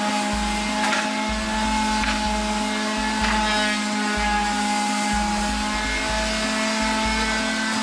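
Electric orbital sander running steadily against weathered wooden furniture, sanding off old flaking wood glaze, with a few short scratchy rasps in the first half.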